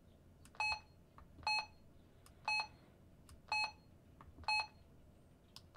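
Retevis RT95 mobile radio's key beep, five short identical beeps about a second apart, each one confirming a button press as its menu is stepped through to change the power setting.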